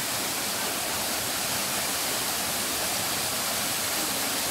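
Waterfall pouring over rock ledges into a pool: a steady rushing hiss.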